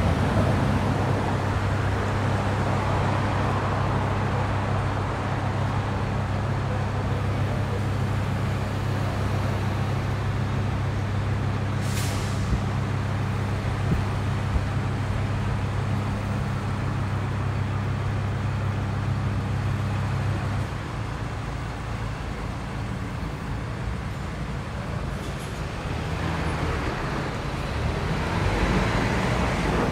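A heavy vehicle's engine idling with a steady low hum that stops about two-thirds of the way through, under the noise of road traffic. A short air-brake hiss comes partway through, and a motor scooter's approach swells the noise near the end.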